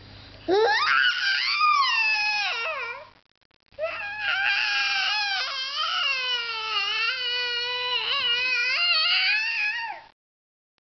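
A baby's high-pitched squealing with a plastic spoon in his mouth: one squeal that rises then falls over a few seconds, a short break, then a longer wavering squeal that cuts off suddenly near the end.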